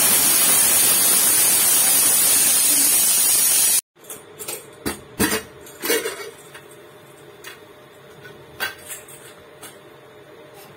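Stainless-steel pressure cooker releasing its pressure, steam hissing loudly and steadily before cutting off abruptly almost four seconds in. Then come scattered metallic clicks and knocks as the cooker lid is unlocked and lifted off.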